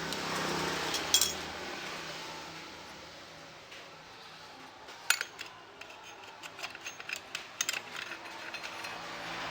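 Clutch plates clicking and clinking as they are handled and stacked into a Kawasaki KX250's clutch basket: a sharp click about a second in, another around five seconds, then a run of small clinks.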